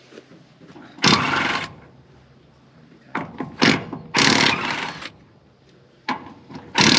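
A power tool run in short bursts, about a second in, again around four seconds and once more at the end, with a few sharp clicks between.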